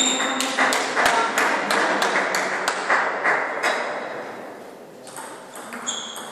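Table tennis balls clicking off bats and tables in a hall, in quick irregular knocks that thin out after about three and a half seconds, with a couple of short high squeaks at the start and near the end.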